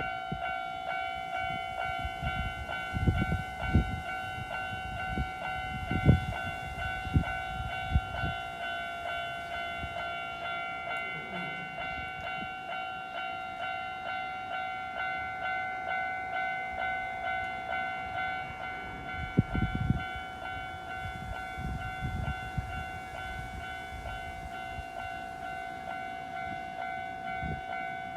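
Electronic warning bell of a Japanese railway level crossing starting up and ringing on steadily in a fast, even repeat. A train runs through the crossing, its wheels giving low thuds over the rails, heaviest a few seconds in and again about two-thirds of the way through.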